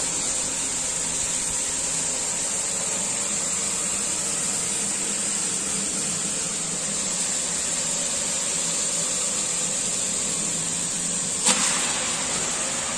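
Burner under a large aluminium cooking pot running with a steady hiss. About eleven seconds in, a sharp hit and sizzle as a heap of raw mutton pieces is dropped into the hot masala in the pot.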